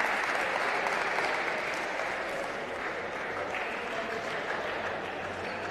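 Audience applauding after a point in a table tennis match, loudest at the start and slowly dying down.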